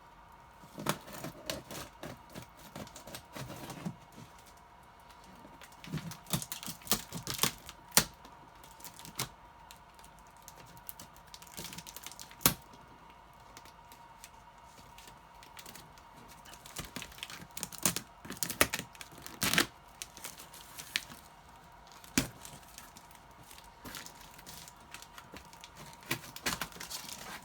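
Cardboard shipping box being opened with a blade: packing tape cut and torn, flaps and packing material rustling and crinkling, with irregular sharp clicks and knocks.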